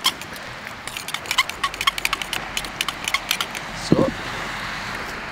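A metal spoon clinking and scraping against a stainless steel bowl as it stirs thick red spice paste, with rapid irregular clicks that stop after about three and a half seconds. About four seconds in comes one short falling sound, the loudest moment, followed by a steady hiss.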